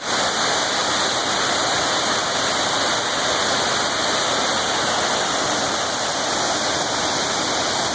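A waterfall about 20 metres tall: the steady rush of falling water.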